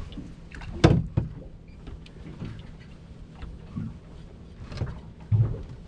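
Knocks and low thuds on a small fishing boat as an angler handles rod, reel and landing net. One sharp knock comes about a second in, and heavier thuds near the end.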